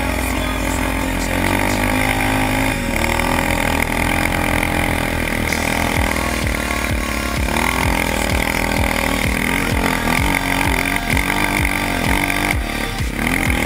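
Yamaha Raptor 700 quad's single-cylinder four-stroke engine under way, its pitch rising and falling again and again as the throttle is opened and eased off.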